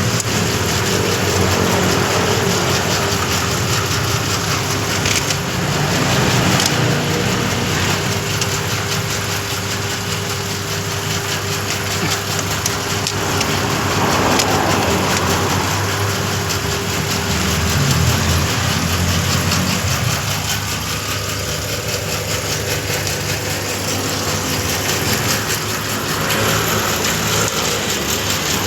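Bamboo satay-skewer making machine running, splitting and shaving bamboo into skewer sticks: a steady motor hum under a rough grinding noise. The level swells and eases slowly.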